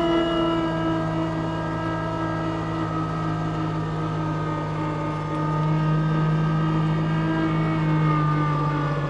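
Kubota LX2610 compact tractor's three-cylinder diesel engine running steadily at high revs while driving the front-mount snow blower through snow. Over the second half the engine note sags slightly in pitch as the blower takes on more snow, the sign of pushing too much snow into the blower.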